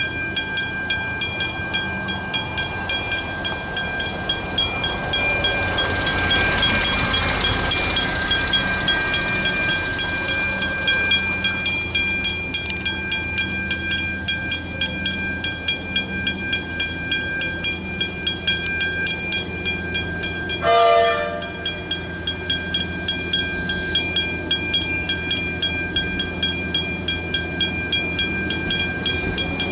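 Westinghouse Hybrid level crossing bells ringing continuously, an even ding of roughly two and a half strikes a second, warning that a train is coming with the boom gates down. About two-thirds of the way through, a train horn sounds once, briefly.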